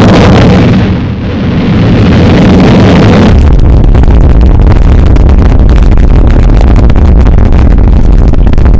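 Rocket engine roar through a burst of flame. About three seconds in it changes to a deep, heavy rumble with a dense crackling rattle, as heard inside the crew capsule during ascent.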